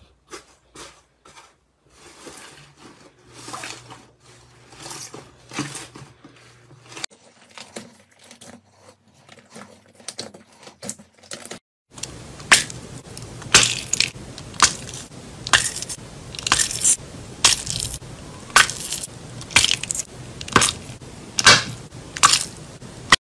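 Soft crackling and clicking as hands press and knead a fluffy slime in a glass bowl. About halfway in this gives way to louder sharp pops, about a dozen, roughly one a second, as small plastic bags filled with orange slime are squeezed until they burst.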